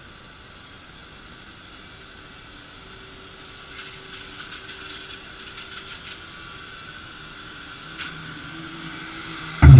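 Vacuum cleaner running steadily, with a patch of rapid rattling in the middle, a single click about eight seconds in, and a sudden loud thump at the very end.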